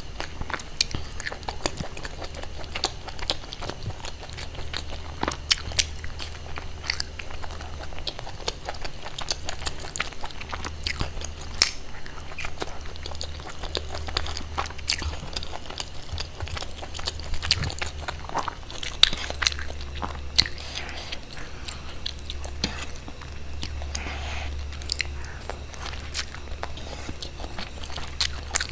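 Close-miked eating: someone biting and chewing crunchy food, with many sharp, irregular crunches and mouth clicks.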